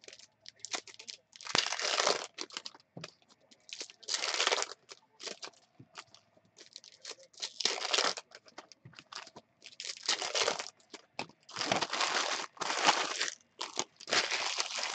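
Foil trading-card pack wrappers being torn open and crinkled by hand, in repeated bursts of crinkling and tearing every second or two.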